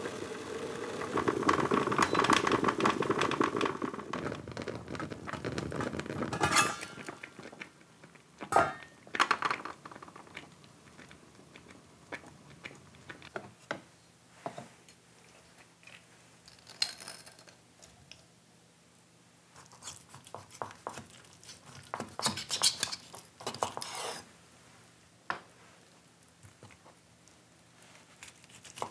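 Kitchen handling sounds as cooked conches are prepared: a fork clicking and scraping against the shells, then a knife on a wooden cutting board. There is a dense clatter in the first few seconds, then scattered sharp clinks and short scrapes.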